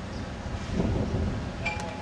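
Wind rumbling on the microphone, swelling briefly about halfway through, with a short metallic ping ringing out near the end.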